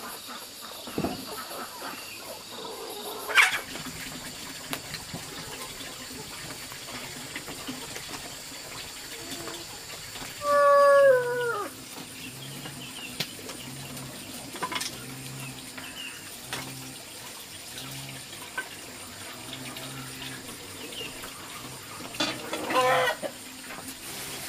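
Chickens clucking with a rooster crowing once, loudly, about ten seconds in, its call falling in pitch at the end. Occasional sharp knocks are heard.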